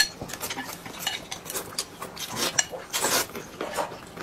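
Two people eating noodles with chopsticks: a string of short, irregular slurps and clicks of chopsticks against ceramic bowls.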